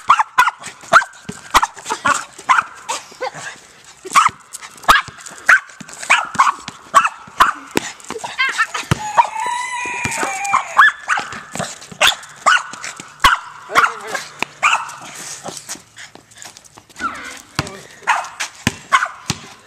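Boston terrier barking over and over in short, sharp barks, about two a second, easing off for a moment a few seconds before the end.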